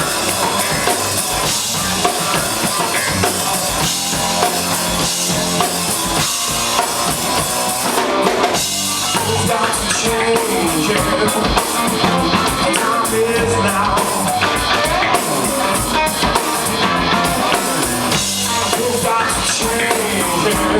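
Live rock trio playing an instrumental passage: drum kit with kick, snare and rimshots, electric bass and electric guitar, with no singing. It runs loud and steady, with a brief dip in the drums about eight seconds in.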